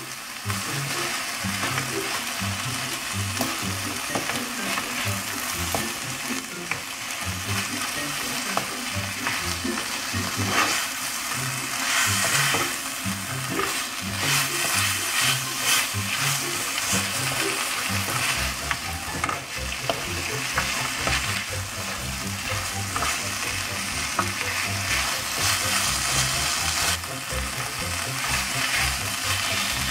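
Kimchi and diced Spam sizzling in a hot nonstick wok as they are stir-fried with a wooden spoon. The hiss swells louder in stretches as the food is turned.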